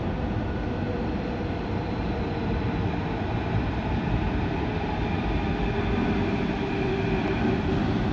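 Athens Metro second-generation train approaching through an underground station: a steady rumble with faint steady whining tones, growing slowly louder.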